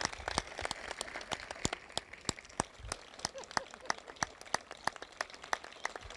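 Light, scattered applause from a small crowd, with individual hand claps heard separately, several each second.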